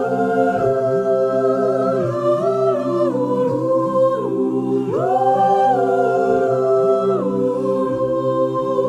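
Outro music of voices singing a cappella in close harmony: held chords that move to a new chord every second or two.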